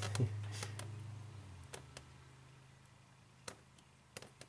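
Scattered small clicks and handling noise of fingers working a wire terminal into a small plastic electrical connector, with a faint low hum that dies away under two seconds in.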